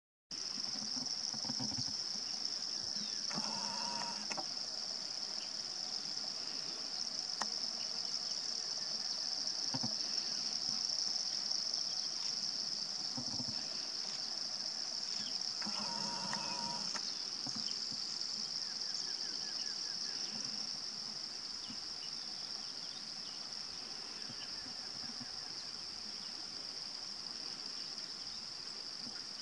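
Steady, high-pitched insect chorus droning without a break. Two short pitched calls from another animal cut in, about 3 seconds in and again about 16 seconds in.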